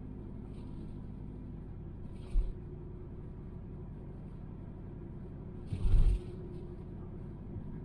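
Cabin noise inside a 1999 Subaru Forester: a steady low rumble, with a short thump about two and a half seconds in and a louder thump near six seconds.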